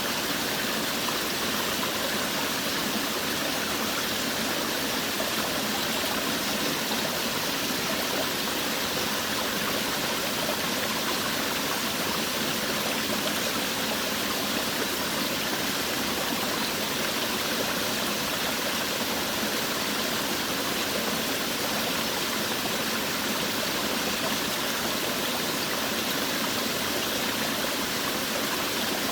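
Forest waterfall: water pouring and splashing in a steady, unbroken rush.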